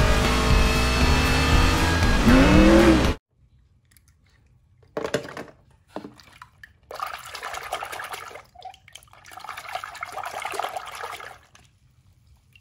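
Race-car engines and a cheering grandstand crowd, cut off abruptly about three seconds in. Then a hand splashes and sloshes water in a plastic tub: a couple of short splashes, followed by longer stretches of swishing.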